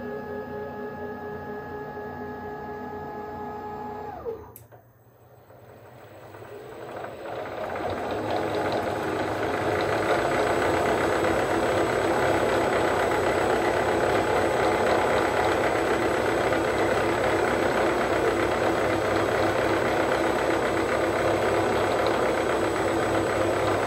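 A steady tone with several pitches stops with a click about four seconds in; then the CNC mill's VFD-driven spindle spins up over several seconds and runs at a constant speed.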